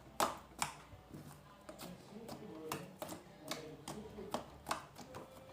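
Homemade slime being squeezed and worked by hand, giving a run of sharp, irregular clicks and pops, about two or three a second.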